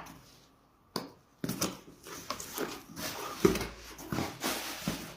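Rustling and clicking of the phone's retail box and its packaging being handled and unpacked: a run of short sharp clicks and taps with patches of rustle.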